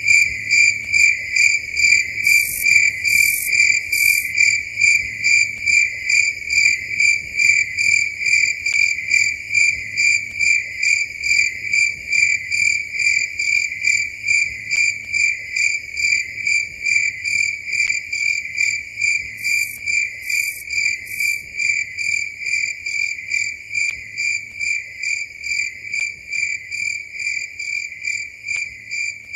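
A cricket chirping steadily in a high, even pitch, about two chirps a second, slowly getting quieter toward the end. Twice, a quick run of three very high, short chirps sounds over it.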